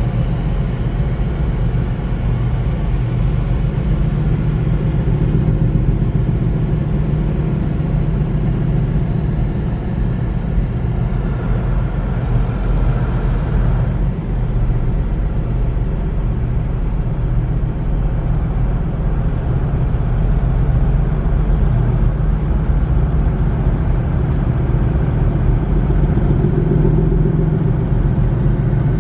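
Steady low engine rumble with a droning hum underneath, holding an even level throughout.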